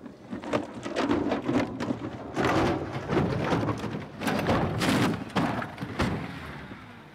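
Old truck tumbling and rolling over down a sand dune: a series of heavy, irregular thuds and crunches that die away near the end as it comes to rest on its side.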